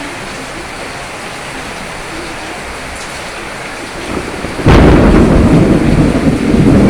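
Steady rain, then a thunderclap about two-thirds of the way through: a swelling rumble, a sudden sharp crack, and loud rolling rumble that carries on.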